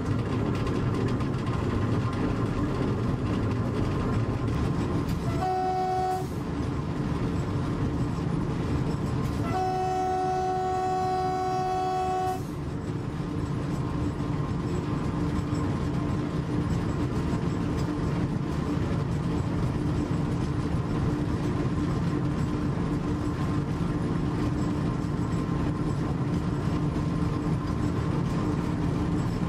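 V36 diesel locomotive running steadily under way, heard from the cab. Its horn sounds twice, a short blast about five seconds in and a longer one of about three seconds near ten seconds in.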